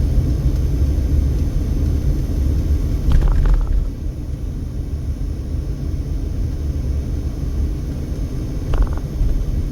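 Car driving slowly: a steady low rumble of engine and road noise, with a few brief clicks a little over three seconds in and one more near the end.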